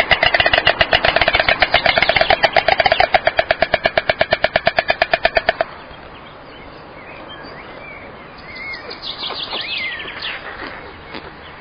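White storks clattering their bills: a loud, rapid, even wooden rattle of about nine strokes a second that stops abruptly about five and a half seconds in, the pair's greeting display at the nest. Later, fainter high bird chirps.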